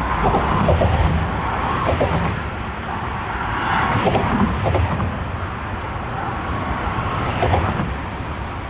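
Steady outdoor rumble and hiss of passing road traffic mixed with wind buffeting the microphone, with uneven low gusts throughout.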